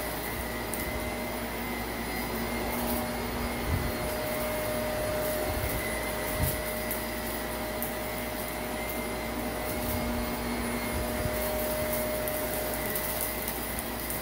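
Shark Navigator upright vacuum cleaner running over shag carpet with a steady motor whine. Scattered light crackles of grit are being sucked up, and there are a couple of soft thumps.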